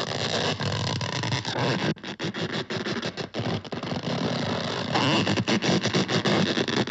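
Loud, harsh rasping noise, a cartoon sound effect, breaking off briefly many times in the middle and growing louder near the end.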